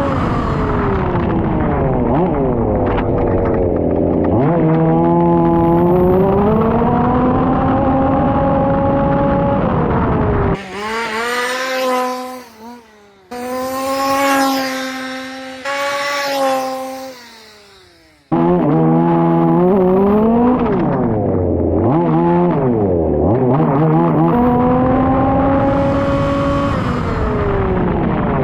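Small petrol two-stroke engine of a 1/5-scale FG RC Formula 1 car, running hard and revving up and down again and again as the car speeds up and slows. For several seconds in the middle the engine sound is quieter and thinner, and it changes abruptly a few times.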